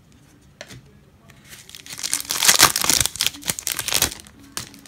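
Foil wrapper of a baseball card pack crinkling and tearing as it is ripped open by hand, a dense crackle that builds about a second and a half in, peaks in the middle and dies away near the end.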